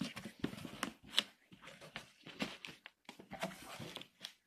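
Cardboard shipping box and its packaging being handled and opened: irregular rustles, scrapes and sharp little knocks.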